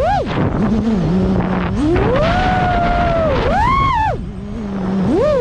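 FPV drone's motors whining, the pitch climbing sharply and falling back several times as the throttle is punched and let off, with a low steady hum at low throttle in between. Rushing wind noise runs underneath.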